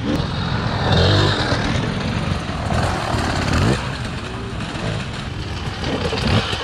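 Enduro dirt-bike engines racing, revving and accelerating on the throttle, with a sharp rise in engine pitch a little past three seconds in.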